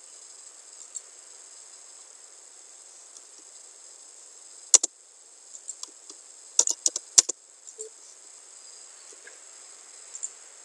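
Sharp clicks of a computer mouse and keyboard over steady faint hiss: a single click about five seconds in, a quick run of several clicks a couple of seconds later, and a few fainter ones near the end.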